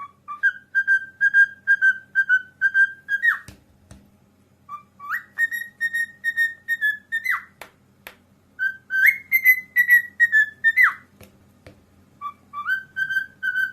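Parrot calling in four runs of quick whistled notes, about four a second, each run ending in a sharp upward sweep.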